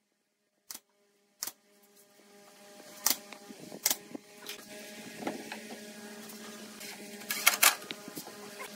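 Pneumatic nail gun firing nails into pine boards: single sharp shots spaced a second or more apart, then a quick run of shots near the end, over a steady hum.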